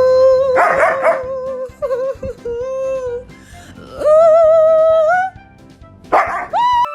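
A dog howling in long, wavering held notes, one rising at the end, with music under it.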